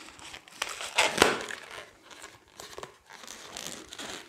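Latex 260 twisting balloon rubbing and squeaking against itself and the fingers as it is knotted and twisted by hand: irregular crinkly scrapes, the loudest about a second in.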